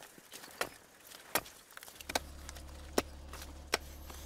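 A hand pick striking a rock face: five sharp strikes, about one every three-quarters of a second. A low steady hum comes in about two seconds in.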